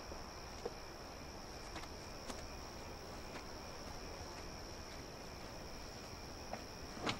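Crickets chirping in a steady, faint, high-pitched trill. A few faint footsteps come through it, and there is a sharp click near the end as a car door opens.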